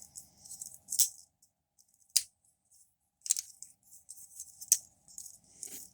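Plastic action-figure parts being handled, flipped and clicked into place while a Transformers Cheetor figure is transformed: light rustling with a handful of sharp plastic clicks about a second apart, the loudest about two seconds in.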